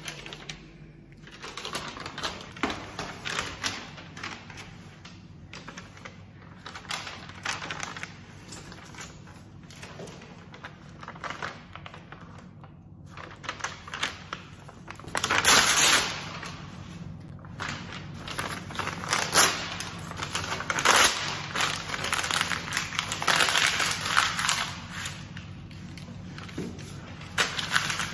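A sheet of notepaper being handled and crumpled: repeated crinkling and rustling with quick crackles, and a few louder bursts about halfway through.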